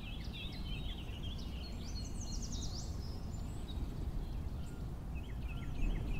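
Small birds chirping and twittering in quick repeated notes, over a steady low background rumble of outdoor ambience.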